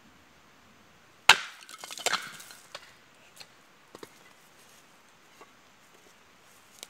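A sharp wooden crack about a second in, followed by a second of splintering and clattering, then a few light scattered knocks.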